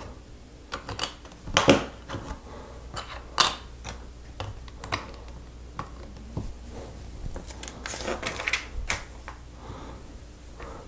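Plastic LEGO pieces being pressed and snapped together: irregular clicks and clacks as slope pieces are fitted onto the plates of a roof section, a few louder snaps among them.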